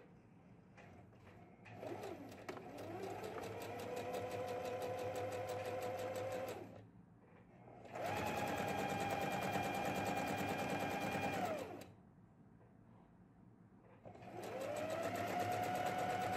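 Domestic electric sewing machine stitching a side seam in three runs of a few seconds each, with short pauses between. Each run starts with the motor whining up to speed, then runs steady with rapid even needle ticking before stopping.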